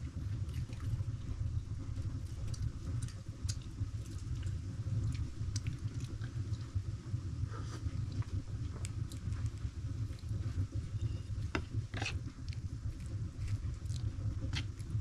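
Livestock eating maize: irregular crunching clicks, more of them about twelve seconds in, over a steady low rumble.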